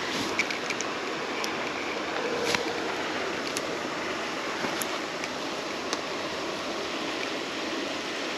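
Steady rushing noise of water at the creek, with a few faint, scattered clicks.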